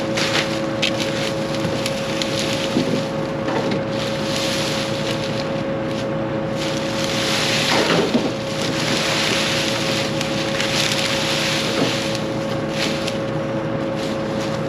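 Combine harvester running while harvesting corn: a steady machine hum under constant crackling and snapping of stalks being taken in, cutting off suddenly at the end.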